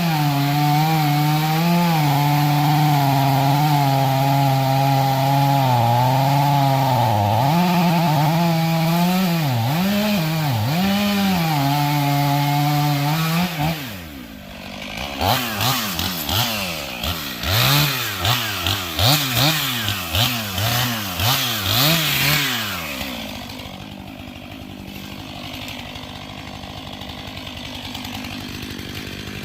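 Two-stroke chainsaw running at full throttle in a cut through a big red oak, its pitch dipping several times under load. About halfway through it is revved in a string of short bursts, then left idling more quietly, and it comes back up to full throttle right at the end.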